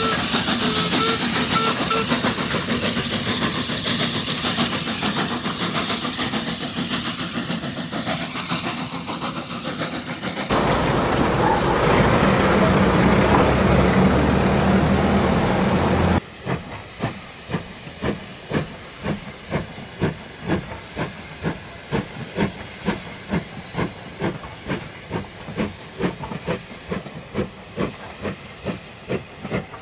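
Model trains running on a layout. A steady hissing, steam-like running sound comes first; a louder stretch with a low hum starts about ten seconds in. For the second half there is a regular clicking of about two a second as the model coaches' wheels run over the rail joints.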